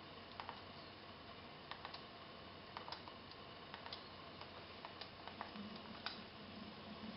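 Computer keyboard keys pressed slowly one at a time, typing a password and confirming it with Enter: faint single clicks about a second apart.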